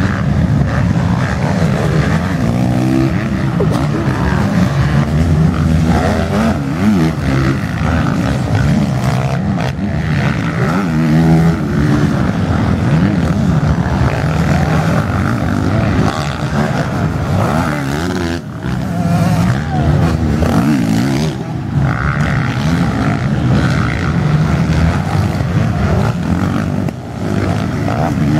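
Motocross bikes racing past on a dirt track, several engines at once revving up and down as the riders shift and open the throttle, one overlapping another.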